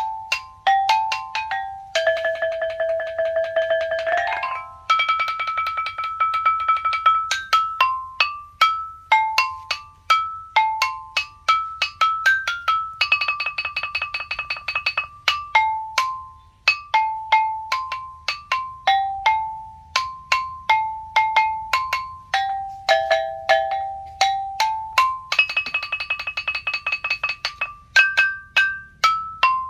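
Đàn đá, a Vietnamese stone lithophone, struck to play a melody in short ringing notes. Four stretches of rapid tremolo rolls on held notes come about two, five, thirteen and twenty-six seconds in.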